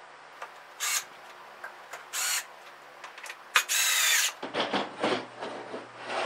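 Electric drill driving screws into plywood in three short bursts, the last and longest with a whining motor pitch, followed by knocks and scrapes of wooden panels being handled.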